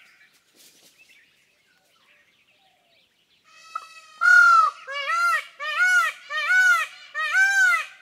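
Indian peafowl calling. After a few seconds of near quiet, a quick series of about five or six loud calls follows, each rising then falling in pitch, spaced well under a second apart, the first the longest.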